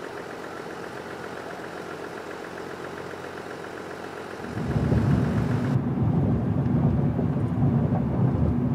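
Pickup truck engine idling with a fine rapid ticking. About four and a half seconds in it gives way to the louder, deeper rumble of the truck driving on the road, heard from inside the cab.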